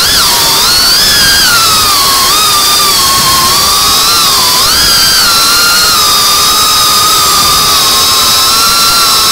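FPV quadcopter's brushless motors and propellers whining over a loud steady hiss, the pitch swooping up and down with the throttle for the first few seconds, then holding fairly steady.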